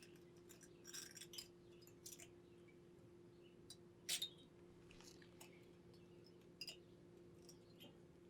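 Faint clicks and light scrapes of a comb being dragged down through a window air conditioner's bent aluminium fins to straighten them, the sharpest click about four seconds in.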